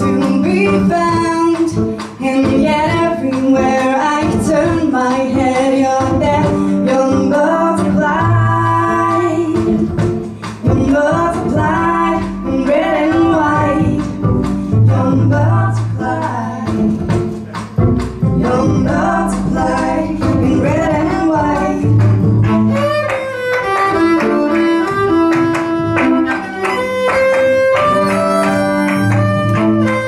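Live song: a woman singing with vibrato over sustained low notes. A violin is bowed over the last several seconds.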